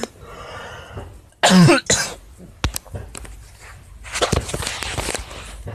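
A single short cough about a second and a half in, with fainter clicks and rustling around it.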